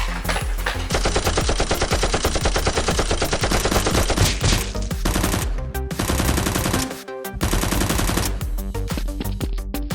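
Bursts of rapid automatic gunfire over background music. The first long burst starts about a second in and runs for several seconds, followed by shorter bursts near the middle and end.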